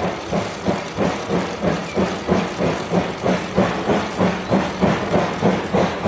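JNR Class D51 steam locomotive (D51 200, a 2-8-2) exhaust chuffing in a steady beat of about three chuffs a second as it pulls along the track.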